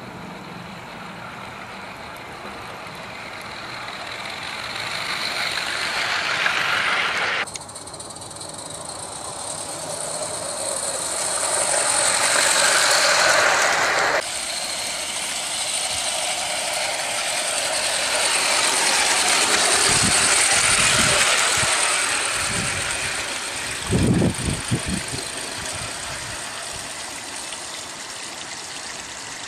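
Roundhouse 'Millie' live-steam garden-railway locomotive running along the track with a steady hiss and rattle, swelling as it comes close and fading again, with abrupt breaks twice. A few low thumps come about two-thirds of the way through.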